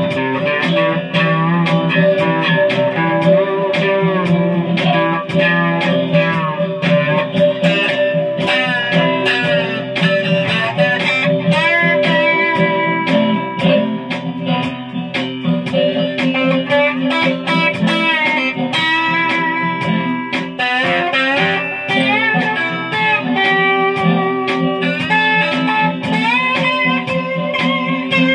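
Guitar played with a slide: melody notes glide up and down in pitch between held notes, over steady low notes that ring on underneath.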